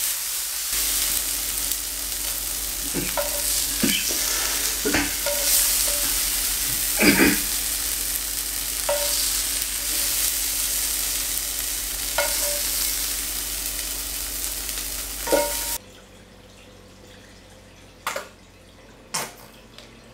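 Chopped tomatoes and green chillies sizzling hard in a frying pan on high heat, with a spatula knocking and scraping against the pan every second or two. The sizzle cuts off suddenly near the end, leaving a few faint clicks.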